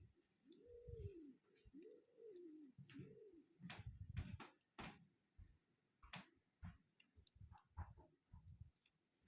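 A bird cooing: four low calls that each rise and fall, one after another through the first three and a half seconds, followed by scattered faint clicks and taps.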